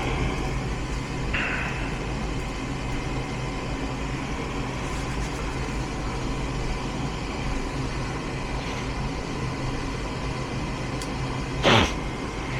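Furnace running on a call for heat: a steady motor hum, with one short, loud sound near the end.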